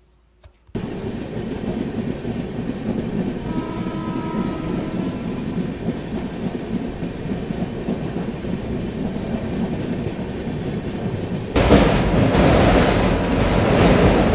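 Indian Railways express train running along the track, a steady rumble and rattle of coaches and wheels. Near the end it suddenly becomes louder and fuller, with a rush of wind and wheel noise as heard from an open coach door.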